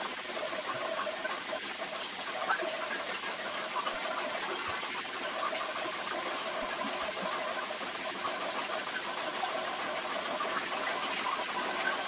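Chenda drum ensemble playing a fast, unbroken roll of stick strokes, dense and steady throughout.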